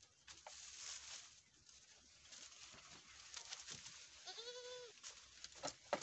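Goats browsing on leafy branches, with faint rustling of leaves and small clicks, and one short, wavering bleat about four seconds in. A sharp click comes just before the end.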